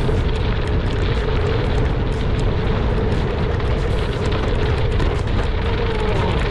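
Wind buffeting the microphone and bicycle tyres rolling over a gravel road at speed: a steady, loud rush with deep rumble, a steady droning tone running through it and small ticks of gravel.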